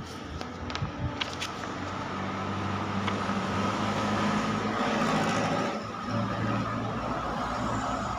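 A motor vehicle's engine running, swelling louder about halfway through and easing off near six seconds, with a few sharp clicks in the first second or so.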